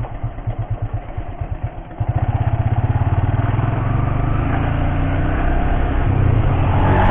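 Motorcycle engine at low revs, each firing pulse separate, as the bike rolls slowly through a turn. About two seconds in the throttle opens, and the engine gets louder and pulls away, then runs steadily under way.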